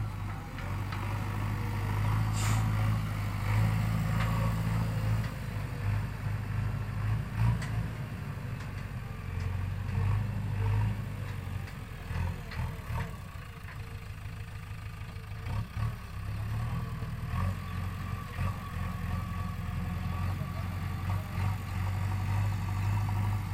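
Diesel engine of a JCB 3DX backhoe loader running, its level swelling and easing a little, with a few knocks mixed in.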